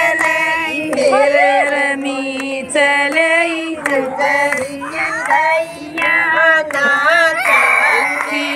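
A group of women singing a Haryanvi devotional bhajan to Shiva (Bholenath) together.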